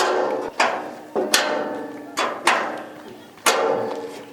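About six hammer blows on metal, unevenly spaced, each ringing and dying away over about a second.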